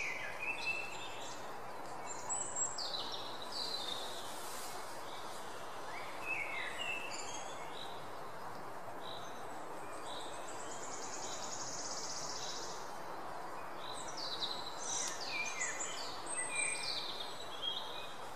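Birds chirping and trilling in many short calls over a steady background hiss, like a recorded nature ambience.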